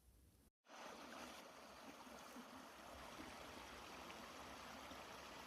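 Faint, steady rushing noise with no distinct events, after a brief break about half a second in.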